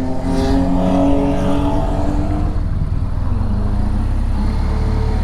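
Motorcycle engine running at a steady cruise, heard over heavy low wind rumble on the microphone. The engine note drops back about halfway through.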